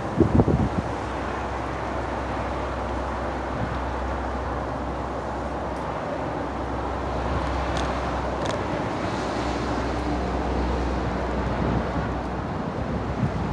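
Steady outdoor background noise: a low, even rumble under a hiss of wind on the microphone, with two faint short clicks a little past the middle.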